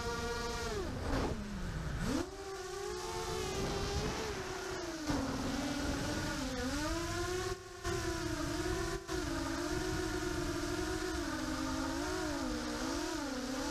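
Brushless motors and propellers of an EMAX Nighthawk 250 FPV quadcopter (EMAX MT2204 2300KV motors) whining with throttle: the pitch drops steeply about a second in as the throttle is cut, climbs back, then wavers up and down with the pilot's stick inputs. A rushing air noise runs underneath, and the sound cuts out very briefly twice near the middle.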